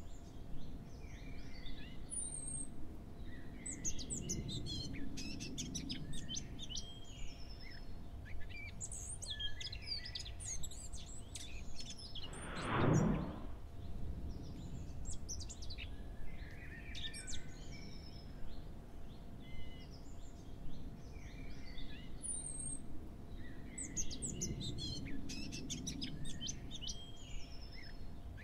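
Birds chirping and singing steadily, a background ambience laid over the picture, with a faint steady hum under it. About halfway through comes one short loud whoosh, the loudest sound here.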